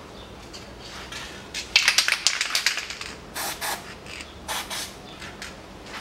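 Short hissing bursts of spray: a quick run of several bursts from about two seconds in, then two shorter bursts about a second apart.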